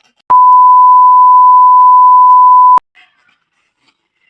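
A loud electronic beep tone on one steady pitch, lasting about two and a half seconds and starting and stopping abruptly.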